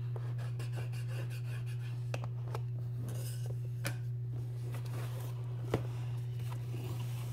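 A cardboard subscription box being opened by hand: scraping and rubbing of cardboard with a few sharp clicks, the sharpest about three-quarters of the way through, over a steady low hum.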